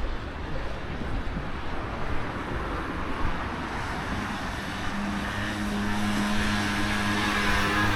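Outdoor street and lakeside ambience: a steady rushing noise, joined about five seconds in by a steady low droning tone that grows a little louder.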